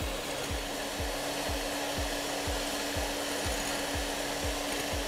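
Electric hand mixer running steadily with a constant hum, its beaters whisking egg yolks, sugar and Marsala in a glass bowl over a water bath as they cook into sabayon cream.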